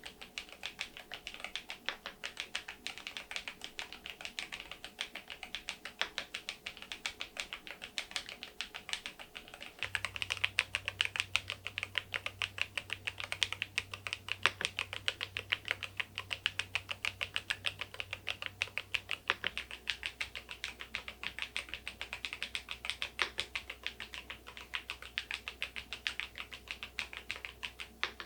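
Typing on a KEYSME AIM04 HE aluminium keyboard with magnetic Hall-effect switches and its stock keycaps: a fast, steady run of key clacks. The typing is louder for a stretch in the middle.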